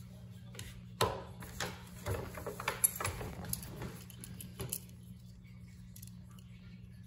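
Handling noise from a paper gift bag and tissue paper as a small red cylindrical item is taken out and turned in the hand: rustling with a few sharp clicks and taps, the loudest about a second in and again near three seconds, over a steady low hum.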